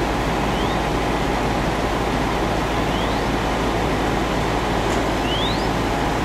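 Steady loud roar of fire apparatus engines running their pumps, mixed with the rush of hose streams and the burning debris. A few faint short rising chirps are heard over it.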